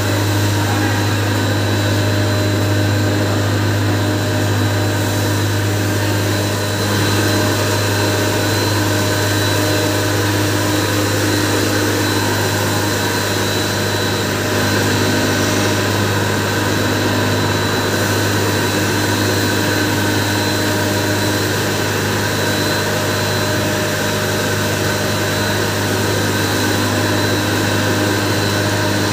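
Sugar pulverizer mill and its electric motor running steadily while granulated sugar is fed in and ground to powder. It makes a loud, even machine drone with a strong low hum and a thin, steady high whine.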